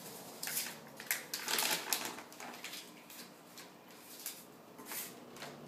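A large plastic tobacco bag crinkling and rustling as it is lifted out of a cardboard box of packing peanuts and handled, in short irregular crackles.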